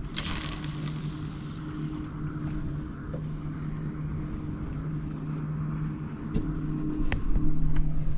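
Boat engine running steadily at a constant pitch, with a haze of wind and water noise; a few sharp knocks come near the end.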